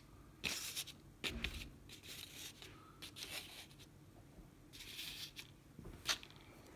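Faint handling noises of small lock parts: scattered light clicks and brief scrapes, with a sharper click about six seconds in.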